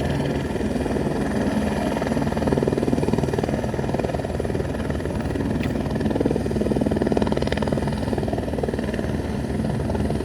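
Airbus helicopter landing close by, its rotor blades making a steady, rapid chop over the whine of the turbine engine.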